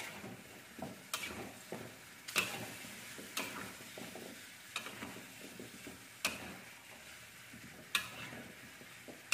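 A metal spatula stirring and turning chunks of chicken, potato and carrot in a metal wok, knocking and scraping against the pan with a sharp clink every second or so and softer shuffling of the food between.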